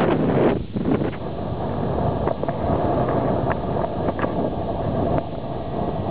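Strong wind blowing across the microphone: a loud gusty rush that eases about half a second in, then blows on steadily.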